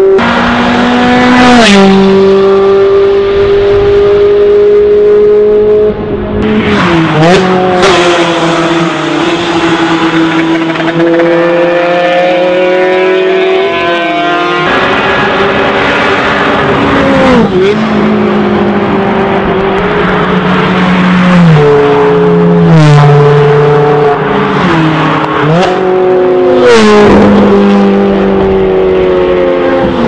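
Ferrari 360 Challenge Stradale 3.6-litre V8 engines accelerating hard past on the road, the pitch holding or climbing in each gear and dropping sharply at each upshift, over and over. Sharp cracks come at several of the shifts.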